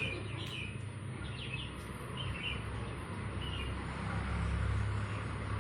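Birds chirping in short calls over a steady low rumble. The chirps stop after about three and a half seconds, and the rumble grows louder from about four seconds in.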